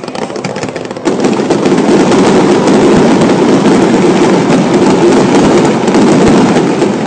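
Fireworks going off in a dense barrage of bangs and crackling, jumping suddenly much louder about a second in and staying loud.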